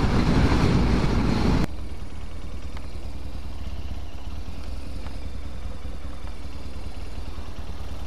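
Motorcycle on the move: wind rush and engine noise, cutting off suddenly about one and a half seconds in to a quieter, steady low engine rumble as the bike rolls slowly through traffic.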